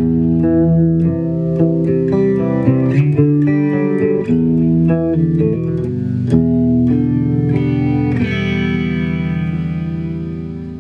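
Electric guitar (a Les Paul) played through an MXR Analog Chorus pedal: a run of picked notes and chords. About eight seconds in, a final chord is struck and left to ring and fade.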